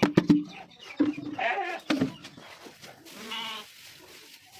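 Sheep bleating: a few short bleats about a second in and another about three seconds in. Several sharp knocks in the first half-second are the loudest sound.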